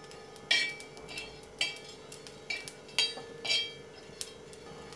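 Metal spatula scraping and clinking on an iron tava, stirring dry-roasting spices and garlic, in about six irregular strokes that each ring briefly. A faint steady hum runs underneath.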